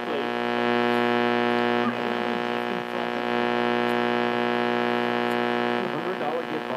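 A 1968–1970 Buick AM push-button car radio playing a station through a loud, steady buzzing hum, with faint broadcast speech underneath.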